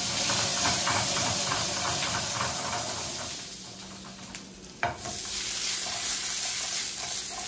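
Onion pieces sizzling in a hot frying pan in oil and the juices left from searing beef. The sizzle thins out briefly, then there is a sharp knock just before the five-second mark, and the sizzling picks up again as the pan is shaken.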